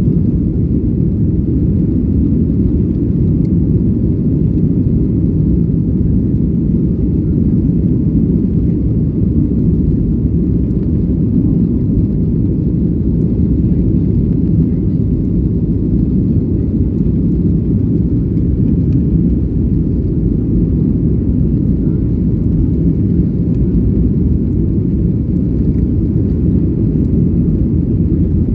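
Airliner jet engines running with a steady low rumble.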